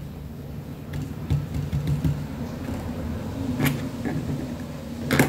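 A low, steady motor hum, louder through the middle, with a sharp click about two thirds in and another near the end.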